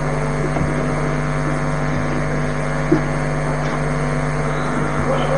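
Steady, unchanging machine-like hum made of several constant tones, with a single faint click about three seconds in.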